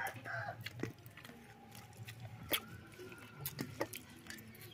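Scattered small clicks and smacks of rice being mixed and eaten by hand from a steel plate, with faint farmyard animal calls behind.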